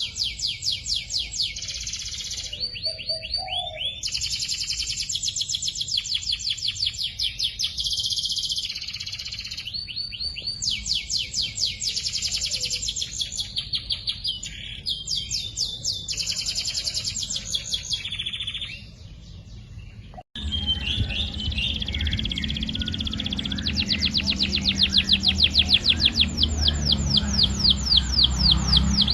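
Domestic canary singing long, fast trills and rolling phrases, one run after another. About 20 s in the recording cuts to another take, where the trills go on, louder, over a steady low hum.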